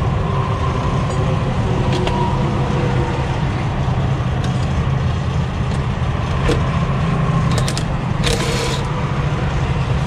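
Semi-truck diesel engine idling steadily, with a few sharp metallic clicks from tools being handled and a short hiss near the end.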